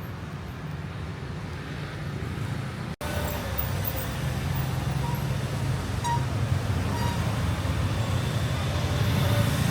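Steady street traffic rumble of passing vehicles, cutting out for an instant about three seconds in, then resuming a little louder.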